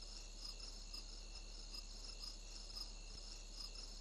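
Faint crickets chirping, a regular pulsing chirp about three times a second.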